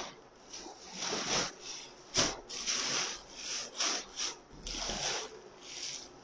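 Plastic-bagged garments rustling as they are pressed down into a cardboard shipping box, in a run of short bursts with a sharper knock about two seconds in.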